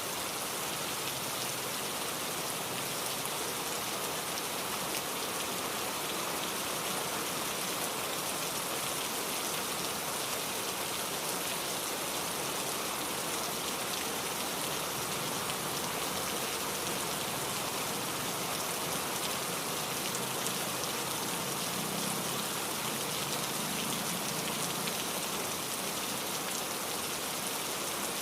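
Heavy rain falling steadily: a dense, even hiss of countless drops with no thunder.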